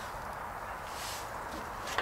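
Faint, steady outdoor background noise with a soft rustle about halfway through, then a light knock right at the end as hands take hold of a plastic 5-gallon bucket.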